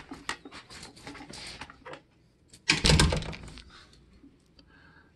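Cloth rustling and rubbing close to the phone's microphone as it is handled: a run of small scuffs and clicks, then one louder rustle about three seconds in.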